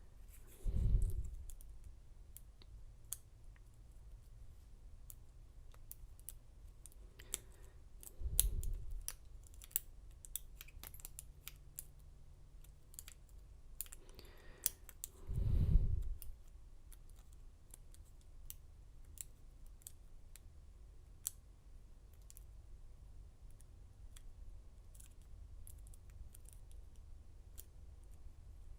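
Lock pick and tension wrench working the pin stack of an American lock core in a Schlage body: light, irregular clicks and small scrapes as pins are set, with the lock held in a false set. Three dull low thuds come about 1, 8 and 15 seconds in.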